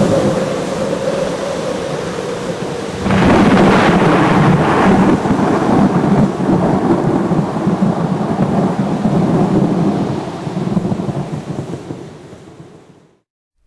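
Thunder rumbling over falling rain. A loud thunderclap breaks about three seconds in and rolls on for several seconds, then the sound fades out near the end.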